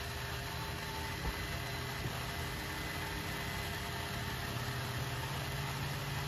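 Small electric pump motor running with a steady, even hum.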